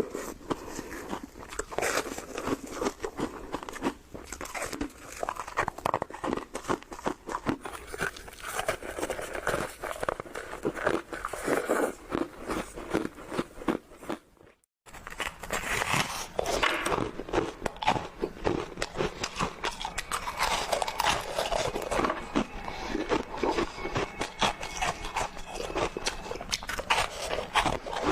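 Close-up crunching and chewing of snow, dense crackly bites one after another, with a brief break about halfway through.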